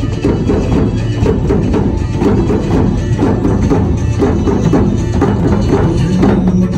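Ensemble of djembes and other hand drums played together by hand in a dense, steady rhythm.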